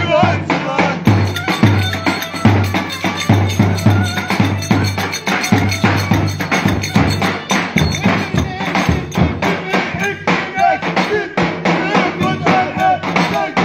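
Lively dance music at a wedding party: a steady, driving drum beat with a wavering melody line on top.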